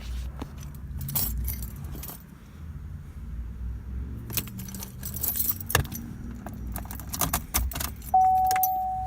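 Car keys on a ring jangling and clinking as they are handled at the ignition, over a low hum. Near the end a steady electronic beep tone starts and holds.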